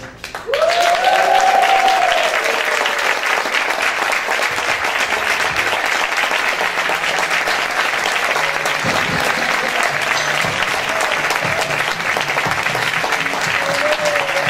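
Theatre audience applauding steadily, with a few cheering voices just after the start and again near the end.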